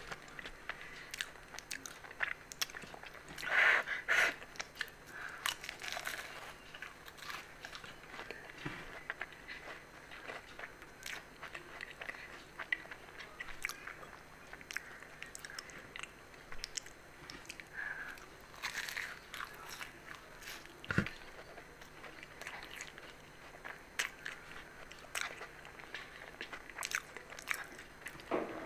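Close-miked eating of fried aloo samosas: the crisp pastry crunching and crackling under biting and chewing, in many small sharp clicks, loudest about four seconds in.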